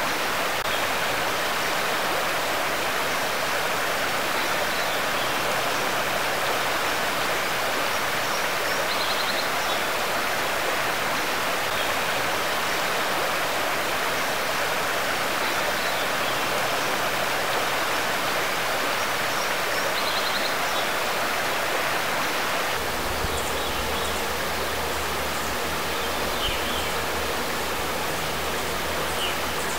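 Stream water running over a shallow gravel riffle, a steady rushing hiss, with a few faint high chirps. About three quarters of the way through, the water sound eases slightly and a low steady hum comes in.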